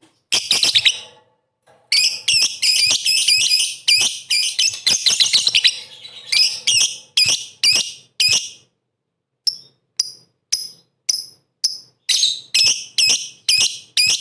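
Lovebird in full song: a dense run of rapid, shrill chirping chatter, then single sharp chirps at about two a second, with a couple of brief pauses.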